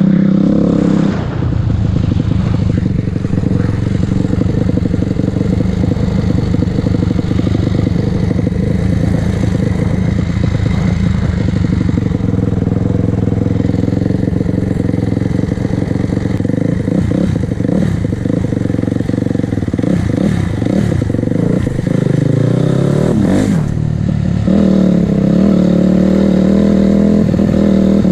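Honda CRF250R's single-cylinder four-stroke engine running under way on a ride, steady for most of the time. Its pitch wavers and drops several times as the throttle is eased off, and it pulls louder again near the end.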